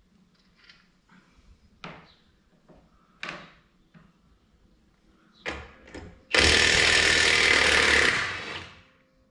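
A few separate knocks, then a power tool runs in one loud burst of about two seconds and tails off, at work on the wheel weights of a tractor's rear wheel.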